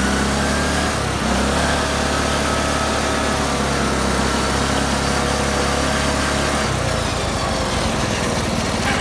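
John Deere L100 lawn tractor's engine running steadily at speed as the tractor drives along, with its governor removed and its throttle worked by a foot gas pedal. The engine note changes about seven seconds in.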